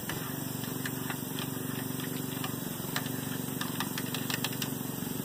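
A motor running with a steady hum, with scattered light clicks and taps, more of them in the second half.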